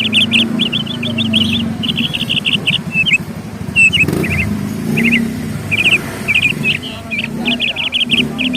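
Small songbirds chirping in quick repeated runs of high notes, with short pauses between runs, over a steady low rumble.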